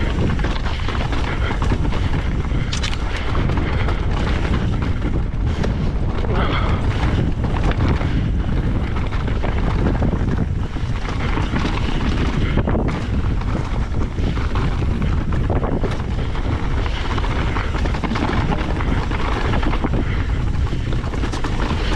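Strong wind buffeting the microphone over the clatter and knocks of a mountain bike descending rough, rocky technical trail.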